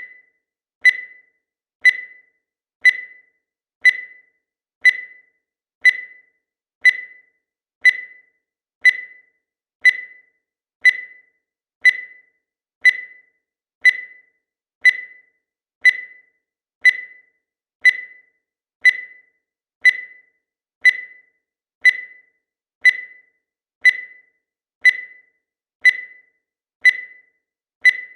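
Digital timer beeping once every second, each beep a short high electronic tone that fades quickly, with silence between: the timer marking off each second as it counts.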